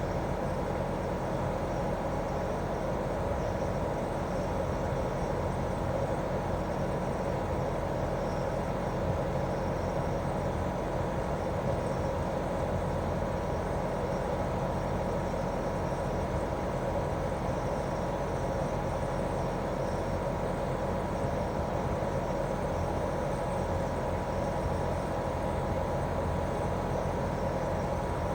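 Daikin R28RMV mini-split outdoor unit running steadily in heating mode: a constant hum from its two-cylinder swing compressor and fan, with several steady tones over a even whir.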